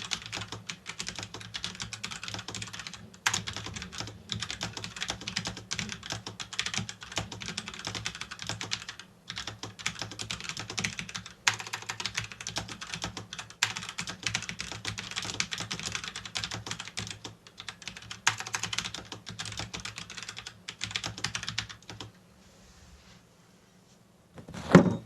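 Fast touch-typing on a computer keyboard, about 70 words per minute: a dense run of key clicks broken by a few short pauses, stopping about 22 seconds in. A single loud thump comes near the end.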